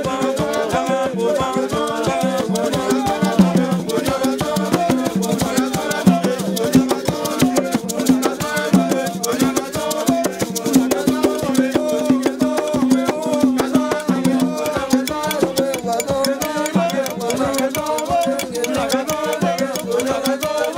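Aloukou music: voices singing over a dense, steady shaker-rattle rhythm.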